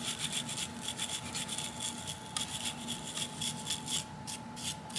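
A gun-cleaning brush scrubbing the solvent-wet front of a Smith & Wesson Model 10 revolver's cylinder to loosen fouling. It makes a quick, irregular run of short scratchy back-and-forth strokes.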